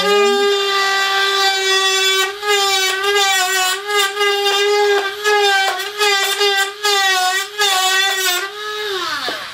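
Cordless Dremel Stylus rotary tool with a drill bit running at high speed. It makes a steady whine that wavers as the bit cuts away the Robart hinge down to its metal pin. Near the end it spins down with a falling pitch.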